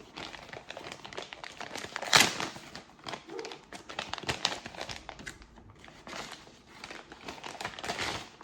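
Packaging crinkling and rustling as a new drone is handled and taken out of its box, with a louder crackle about two seconds in.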